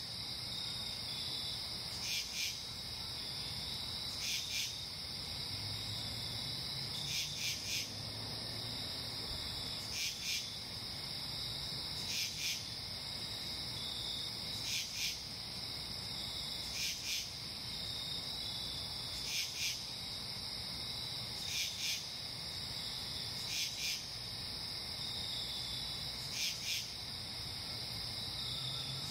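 Night insect chorus: a steady high cricket trill, with a louder insect call of two or three quick pulses repeating about every two seconds.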